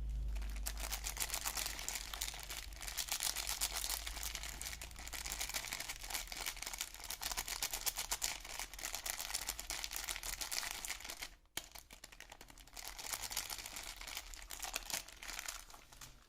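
Soap packaging wrapper being handled and unwrapped, crinkling almost continuously with a brief pause about two-thirds of the way through before the crinkling resumes.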